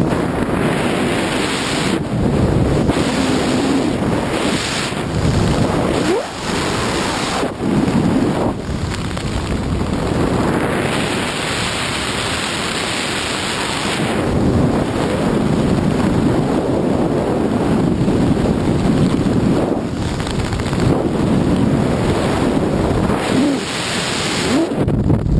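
Wind buffeting a small camera microphone during a parachute canopy descent: a loud, uneven rush of noise that swells and dips in gusts.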